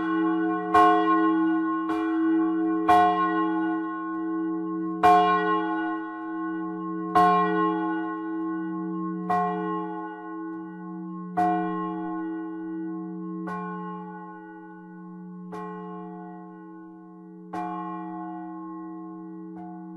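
A large bronze church bell swinging in its timber bell frame. The clapper strikes about once a second at first, then only about every two seconds, each stroke weaker, over a steady ringing hum: the bell is ringing down.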